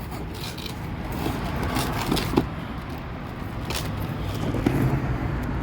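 Packaging being handled and opened: irregular rustling, crinkling and scraping, with a few sharper clicks about two and four seconds in, over a steady low hum.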